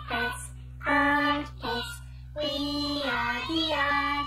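Short sung theme jingle: a high voice sings a few phrases of long held notes over a steady backing track.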